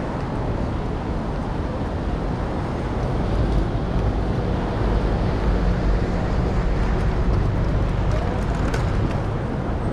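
Busy city-street background: a steady wash of traffic from the avenue alongside, with wind rumbling on the microphone.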